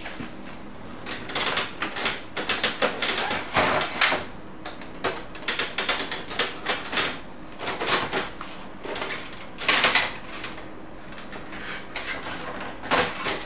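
Plastic parts of an HP LaserJet P3005 laser printer being handled: its paper tray, front cover and cartridge area knock, snap and rattle in irregular clusters starting about a second in.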